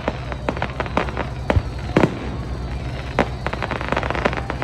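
Fireworks going off in an aerial display: a rapid string of sharp bangs and pops, the loudest about two seconds in, with a dense run of crackling near the end.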